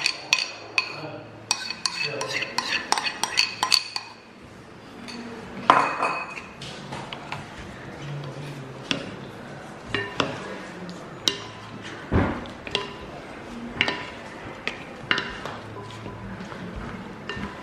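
A metal spoon clinking and scraping against a metal bowl as thick salad dressing is scooped out, a quick run of ringing clinks. From about four seconds in, a wooden spatula tosses the salad in a ceramic bowl, with softer scattered knocks and scrapes.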